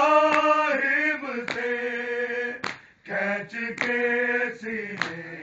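Men's voices chanting a noha, a Shia lament, in unison on long held notes, with a short break between phrases about three seconds in. Sharp strikes of matam, hands beating on chests, keep time a little more than once a second.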